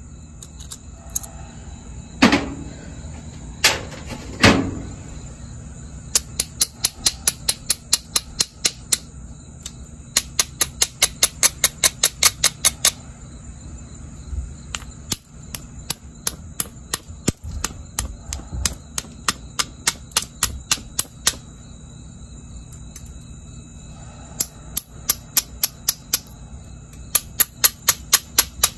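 Jasper being worked with a metal-tipped pressure flaker: three sharp pops as flakes snap off the edge in the first few seconds, then runs of rapid, even clicking, about four or five a second, as the copper-tipped tool is stroked along the stone's edge.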